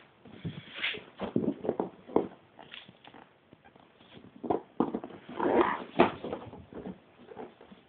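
Handling noises from a football-boot unboxing: irregular taps, knocks and rustling of the box, paper and boots, with a longer rustle about five and a half seconds in.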